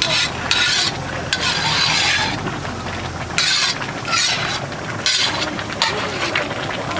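Repeated scraping strokes of a large metal ladle working through rice in a big cooking pot, with the hiss and sizzle of the steaming rice under them.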